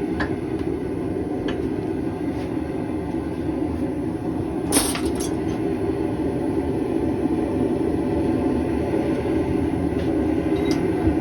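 Steady rushing of a running forge, with a few light metallic clinks of steel being handled and one sharper clink about five seconds in.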